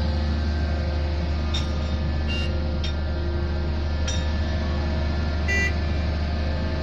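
Diesel-powered pile-driving rig running steadily with a deep hum, and a few short, ringing metallic clinks scattered through it.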